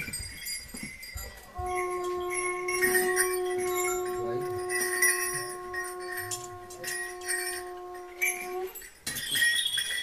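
A blown horn holds one long steady note, starting about a second and a half in and stopping shortly before the end. Small bells jingle and clink throughout.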